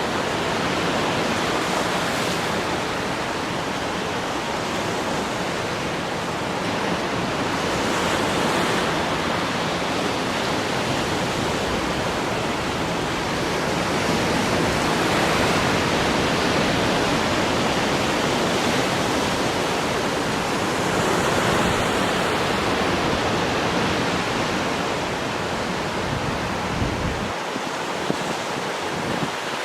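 Sea waves breaking and washing onto the shore in a continuous rush of surf, swelling louder every several seconds as larger waves come in.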